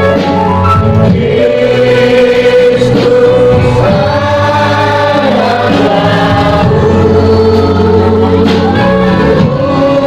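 A choir sings a Christian hymn in long held notes over a steady low accompaniment.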